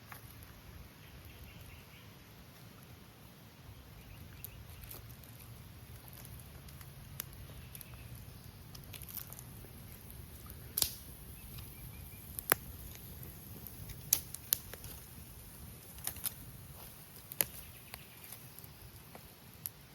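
Steady low rush of river water, with about half a dozen sharp clicks and taps of handling in the second half.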